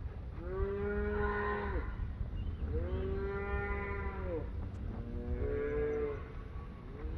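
Beef cattle mooing: three long moos, each arching up and then down in pitch, and a fourth starting near the end, over a steady low rumble.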